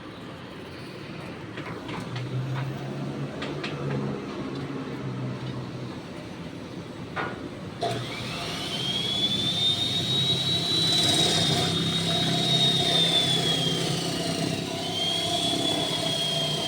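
A handheld electric power tool's motor spins up about halfway through to a high steady whine, sags briefly near the end and picks up again, after a few knocks.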